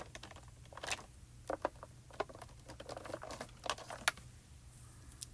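Faint, scattered light taps and rustles of small die-cut paper pieces being handled on a craft table, about half a dozen soft clicks spread irregularly.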